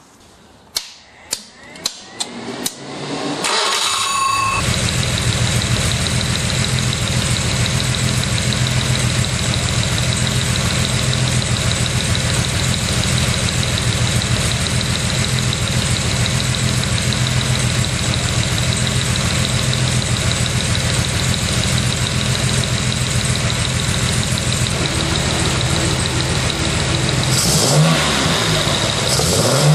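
Freshly rebuilt Jaguar E-type 4.2-litre straight-six with triple SU carburettors: a few clicks, then the engine is cranked and fires about four seconds in and settles into a steady idle, with a short rise near the end. The engine is sound; any tapping that seems to be heard is not a fault, according to its builder.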